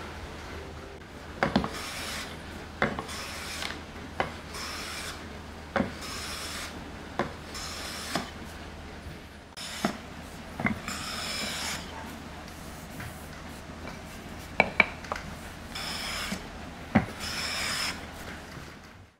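A hand-held blade shaving a wooden chair part in a series of short scraping strokes, each a second or two apart, with sharp knocks of the tool against the wood between strokes.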